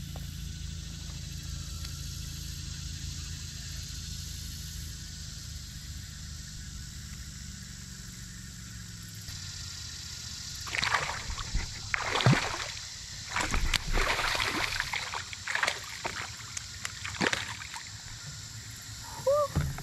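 A steady low hum, then from about halfway in a run of irregular splashes: a small bass hooked on a topwater frog lure thrashing at the surface as it is fast-reeled to the kayak and swung out of the water. A short pitched squeak comes near the end.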